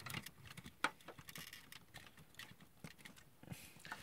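Hard plastic parts of a DX Great Sungard transforming toy robot clicking and tapping as it is handled and adjusted, a series of light scattered clicks with one sharper click about a second in.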